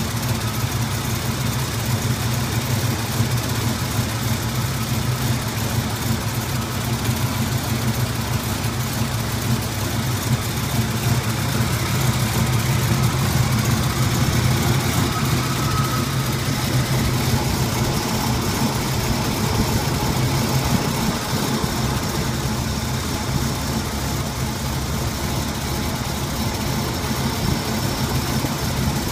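1981 Pontiac Turbo Trans Am's turbocharged 301 V8 idling roughly soon after a cold start, running rough enough to shake the whole car.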